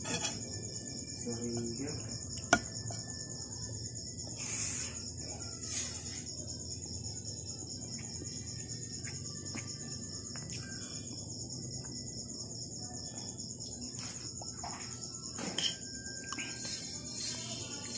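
Crickets chirring steadily in a continuous high pulsing trill. A few sharp clinks of a metal spoon on a ceramic plate cut through it, the loudest about two and a half seconds in.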